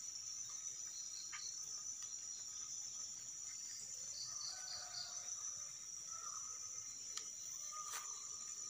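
Insects chirring in a steady high-pitched drone, with a few faint chirps around the middle and a couple of soft clicks near the end.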